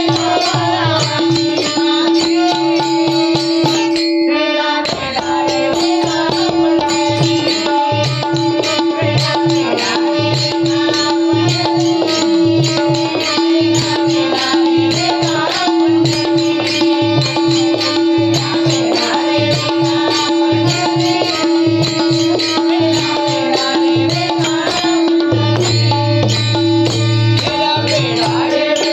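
Devotional bhajan music: a steady held drone note under busy melodic lines and hand-drum beats, the drone dropping out briefly about five seconds in.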